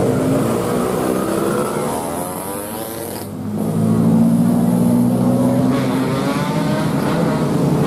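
Road traffic passing close by: motor scooters and cars driving past with their engines running. The sound eases off about three seconds in, then grows louder as the next group of vehicles goes by.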